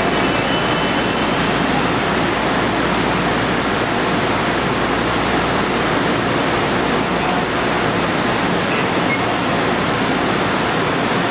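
Steady, even rushing noise of a Daewoo EMU500 electric multiple unit standing at the platform, its on-board equipment running.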